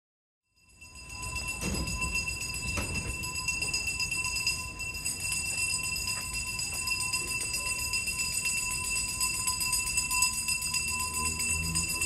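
Garbage collector's hand bell rung continuously, the call for residents to bring their rubbish out to the garbage truck. It starts about half a second in, and a low rumble joins near the end.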